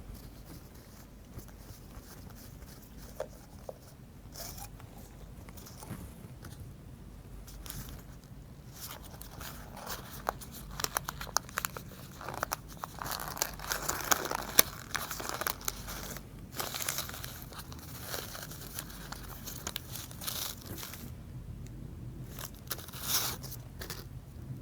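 Plastic packaging of a diesel injector valve assembly being handled and opened: irregular crinkling, tearing and small plastic clicks, busiest in the middle and again near the end.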